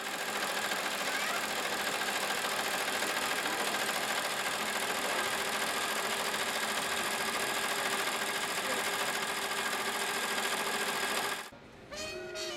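Multi-needle embroidery machine running steadily as it stitches lettering into a hooped shirt, then cutting off near the end.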